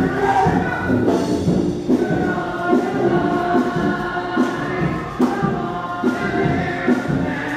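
Music with a group of voices singing together, held notes changing every second or so over light percussion.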